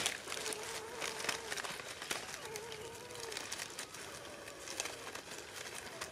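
Leafy branches rustling and crackling as a smoking bundle of leaves is held and pressed against the bush, with scattered small clicks. A faint wavering hum sounds through the first half.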